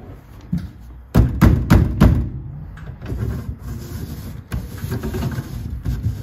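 1983 Toyota pickup's engine cranking and catching about a second in after sitting for over four years, then running steadily. A sharp click comes near the middle.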